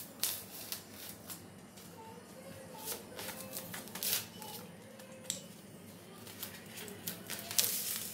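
Utility knife blade cutting through a thermocol (expanded polystyrene) sheet: irregular short scratchy crackles as the blade drags through the foam, with a longer, louder scrape near the end.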